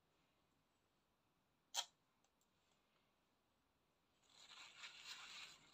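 Mostly quiet, with a single sharp click a little under two seconds in. Near the end comes about two seconds of rustling and scraping as macaron batter is scraped from a plastic bowl into a plastic piping bag.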